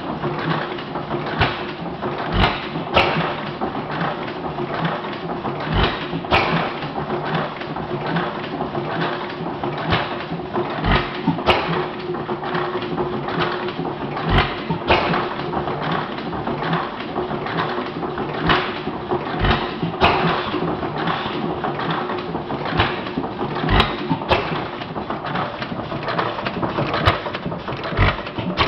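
Model hit-and-miss gas engine with hot-tube ignition running on its flywheels: it fires with a heavy thump about every four or five seconds, seven times, and coasts through miss cycles in between under a constant clicking clatter of the mechanism and a faint steady hum.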